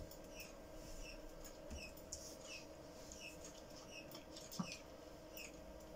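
Faint, short high chirps repeating about every two-thirds of a second over a steady low hum, with a soft knock about four and a half seconds in.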